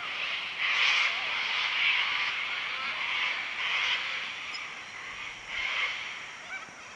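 A dense chorus of wild animal calls, a high hissing band of sound that swells and drops in stretches of about a second, with a few short wavering calls over it.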